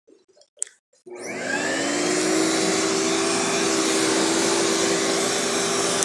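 Carpet Pro commercial upright vacuum cleaner starting up after a short click: the motor spins up with a rising whine about a second in, then runs steadily with a constant hum.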